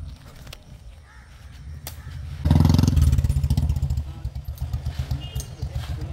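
A small engine running with a low, rapid pulse. It gets much louder about two and a half seconds in, then eases back down.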